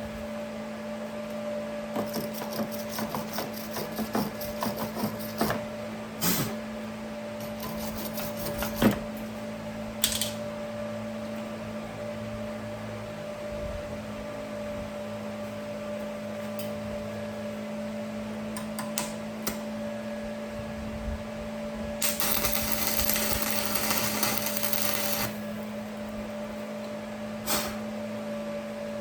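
Stick welding work with a portable inverter arc welder: scattered knocks and clicks of metal being handled, then a crackling arc for about three seconds near the end that cuts off suddenly, over a steady hum.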